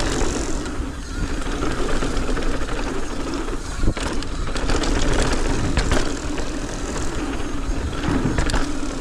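Mountain bike being ridden fast over a rough, brake-bumped dirt trail. There is a continuous rushing rumble of tyres and air, broken by many sharp knocks and rattles as the bike hammers through the bumps.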